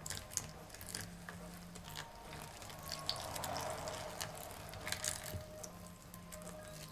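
Silicone spatula scraping and stirring a wet bread starter in a plastic bowl, loosening it from the sides, with irregular small clicks and scrapes, while a thin stream of water trickles into the bowl.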